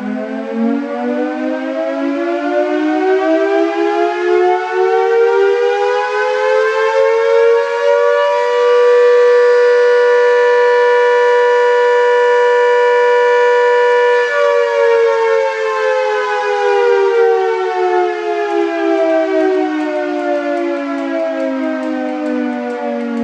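Castle Castings three-phase motor-driven air raid siren, fed from a single-phase socket through a frequency inverter, winding up with rising pitch over about eight seconds. It holds a steady, loud wail at full motor speed for about six seconds, then winds down with falling pitch.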